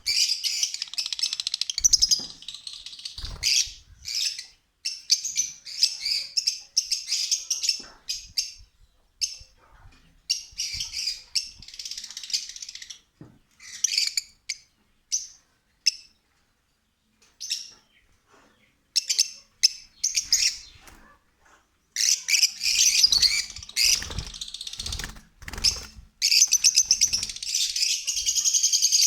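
Lovebirds chirping and chattering in quick high-pitched bursts with short pauses, becoming denser and nearly continuous near the end. A few low thumps come through among the calls.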